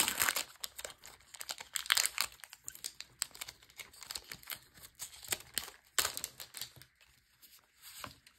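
Foil wrapper of a Magic: The Gathering set booster pack crinkling and tearing as it is ripped open and handled, a dense crackle with louder bursts near the start, about two seconds in and about six seconds in, thinning out near the end.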